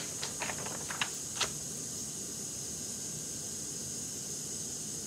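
A sheet of drawing paper being lowered and set down on the table: a few short crinkles and taps in the first second and a half, then only a steady high hiss.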